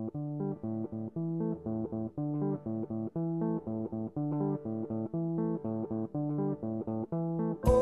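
Background music: a repeating figure of plucked guitar notes over a bass guitar line.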